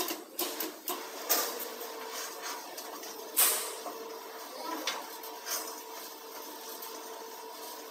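Round duct elbow making machine running with a steady hum while a sheet-metal duct section turns through its rollers. Scraping and clanking of the metal piece come on top, several times, loudest about three and a half seconds in.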